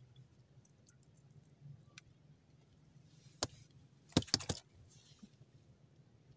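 Hands handling fishing gear in a small wooden boat: one sharp click, then a quick cluster of four or five clicks about a second later, with soft rustling around them.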